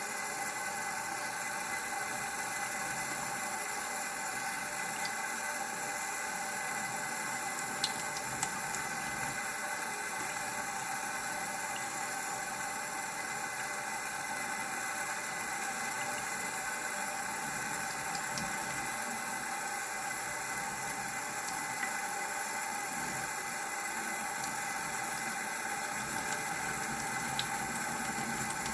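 Water running steadily from a tap, with a few faint clicks about eight seconds in.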